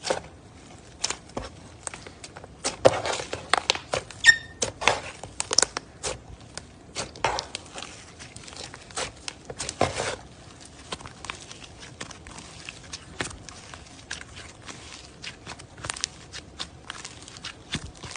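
Slime being squished and worked, giving a stream of irregular sticky clicks and pops, with a brief squeak about four seconds in.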